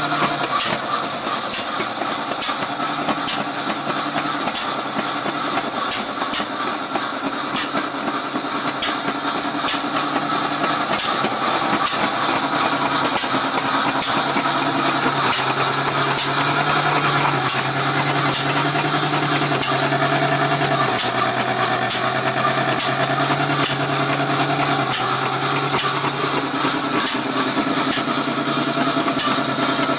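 A 1913 1 hp IHC Famous hit-and-miss engine driving an 1880s Eagle ten-saw cotton gin by flat belt: steady machine running with frequent sharp clicks and a low hum that shifts up and down in pitch.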